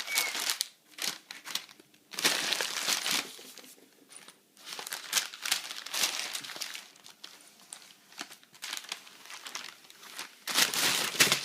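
Newspaper pages rustling and crinkling in irregular bouts as a kitten plays with them, with short pauses between bouts.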